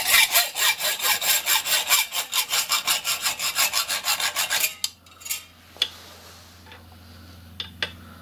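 Metal-cutting bandsaw cutting through a metal bar with a fast, even rasp that stops suddenly about four and a half seconds in as the cut breaks through. The saw then runs on with a low hum and a few light clicks.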